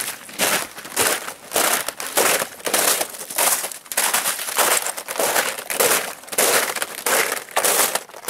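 Boots crunching over icy snow in steady walking steps, about two a second.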